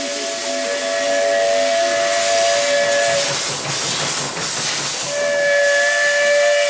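Steam whistle of a Baldwin-built WP class steam locomotive: a long steady blast that stops about three seconds in, then a second long blast starting about two seconds later, over continuous hissing steam.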